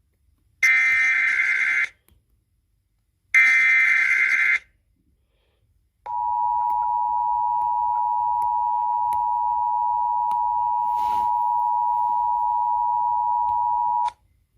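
Emergency Alert System broadcast tones: two harsh, buzzy SAME digital header bursts about a second long, then the steady two-tone EAS attention signal (853 and 960 Hz together) held for about eight seconds before cutting off abruptly. This signals that an emergency alert message is about to be read.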